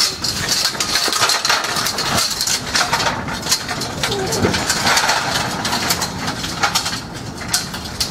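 Giant pair of metal hoop wheels rolling over pavement, a continuous rattling clatter of many small clicks and knocks from metal on the ground and the frame's joints.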